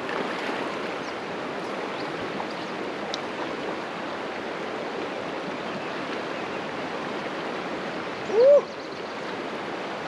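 Small mountain creek rushing steadily. About eight and a half seconds in, a short tone that rises and then falls stands out above the water.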